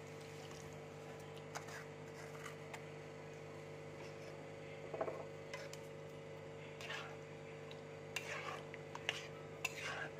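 Metal spatula scraping and stirring through thick milk and curd in a kadai, with scattered light scrapes and clinks against the pan. A steady low hum runs underneath.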